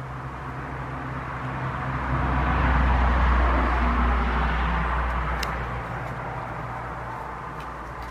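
A vehicle passing by: its rumble and tyre noise swell to a peak about three seconds in, then fade. A brief high call, likely from a bird, cuts through about five seconds in.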